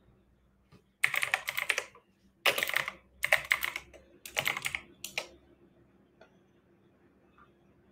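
Typing on a computer keyboard, picked up over a video-call microphone: four quick runs of keystrokes about a second long each, then a short fifth run.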